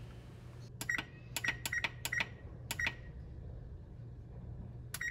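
Electric range's touch control panel beeping as its timer keys are pressed over and over: about seven short high beeps in the first three seconds, then another near the end, over a faint low hum.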